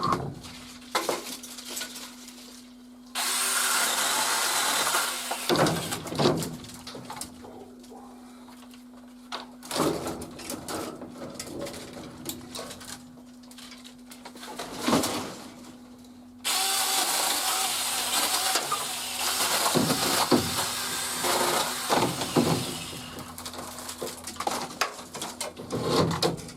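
Seesii PS600 battery electric pole saw cutting wood in two bursts, a short one of about two seconds and a longer one of about six seconds, with knocks and clatter between the cuts.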